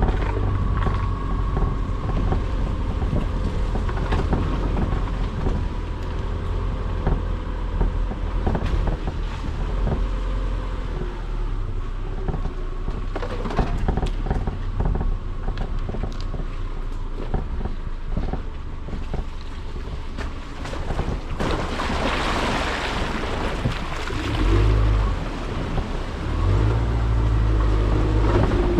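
Car driving along a road: a steady low engine and road rumble with wind buffeting the microphone and many small knocks. About 22 seconds in, a louder rushing hiss lasts a couple of seconds.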